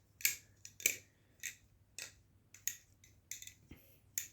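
Fully aluminum Squid Industries Swordfish balisong being flipped: a run of about a dozen short, sharp metal clicks at an irregular pace, as the handles and blade knock together.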